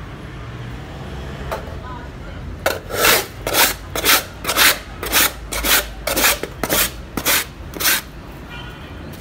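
A hand scraper is shaved across a block of ice, making shaved ice. It gives about eleven rasping strokes, roughly two a second, starting about two and a half seconds in.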